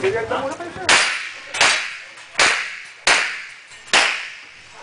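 Pistol shots in a steady string, five sharp reports a little under a second apart, each with a short echo. A voice speaks briefly at the start.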